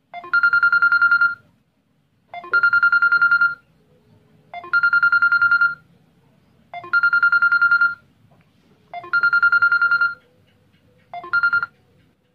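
Samsung Galaxy J2 ringing for an incoming call: a loud trilling electronic ring, each ring about a second long and repeated about every two seconds, five full rings and a sixth cut short near the end.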